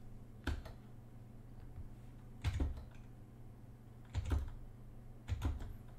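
Computer keyboard keystrokes in four short, separate clusters of one or two sharp clicks each, a second or two apart, over a faint low hum.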